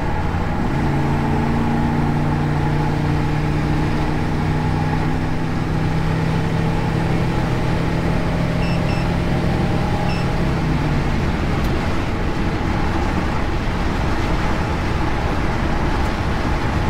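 1977 Chevy C10 pickup's engine under a kickdown at highway speed, heard inside the cab. It drones steadily for about ten seconds, then drops back under constant road and wind noise.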